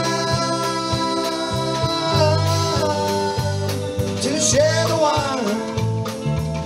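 Background music: a guitar-led song with a steady beat.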